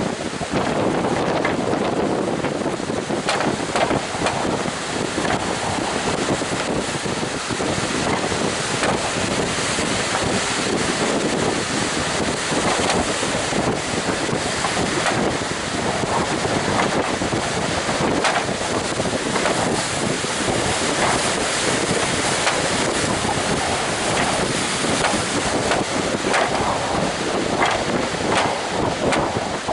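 Strong gusting wind buffeting the microphone over steady crashing surf, a dense, even roar.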